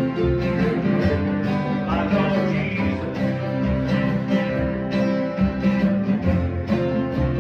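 Bluegrass jam band playing, with acoustic guitar prominent among plucked string instruments.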